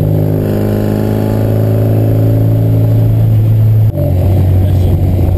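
Dutchspeed-built A-series race engine (under 1400cc, Weber 45 carburettor) in a classic Mk1 Mini, running under load on the road, heard from inside the cabin. Its note climbs slowly, then changes abruptly about four seconds in to a slightly lower, rougher note.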